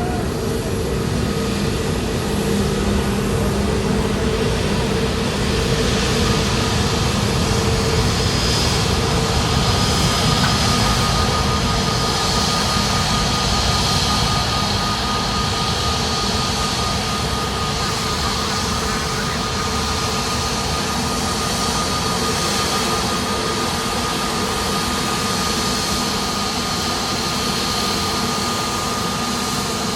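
Jet airliner engines running steadily: a constant rush with a thin, held whine over it, swelling slightly about six seconds in and easing back after about fourteen seconds.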